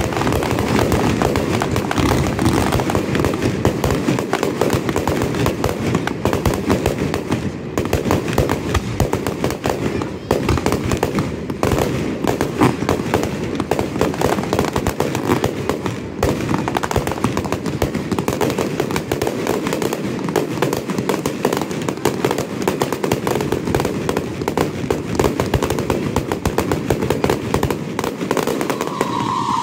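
Aerial fireworks in a dense barrage: many shells bursting close together, giving a rapid, unbroken run of crackles and bangs.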